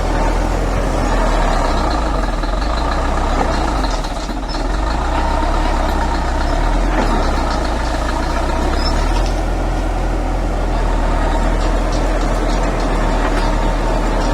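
Heavy diesel engine of a road-construction machine running steadily, with a brief dip in level about four seconds in and faint scattered clicks.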